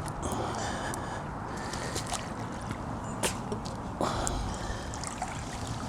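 Lake water trickling and splashing close by, with a few sharp clicks and knocks, the clearest about three and four seconds in.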